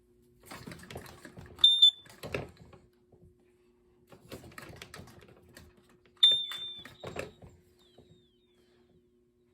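A carbon monoxide alarm's piezo sounder gives a short, high beep about a second and a half in and another about six seconds in, as its button is pressed. Plastic handling and button clicks clatter around each beep.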